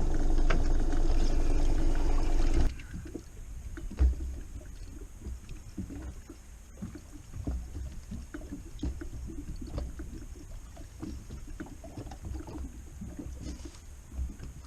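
A small boat's motor runs steadily, then cuts off suddenly a little under three seconds in. What remains is water lapping and slapping against the hull, with scattered small knocks and one sharper knock about a second later.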